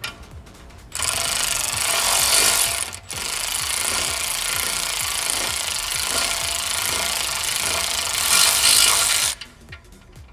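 Cordless electric ratchet running in two spells, with a short break about three seconds in, as it unscrews a front brake caliper mounting bolt; it stops abruptly near the end.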